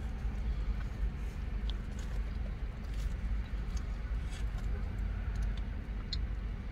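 Steady low rumble of a car idling, heard inside the cabin, with a few faint ticks and crinkles from the foil wrapper of a burrito being handled.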